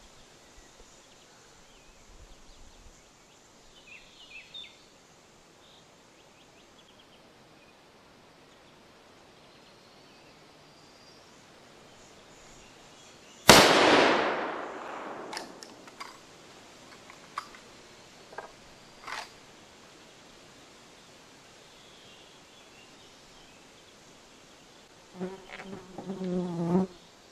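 A single shot from a Winchester M1895 lever-action rifle in 7.62x54R, about halfway through, a sharp crack that rings and dies away over about a second. Several short sharp clicks follow, and a brief low buzz comes near the end.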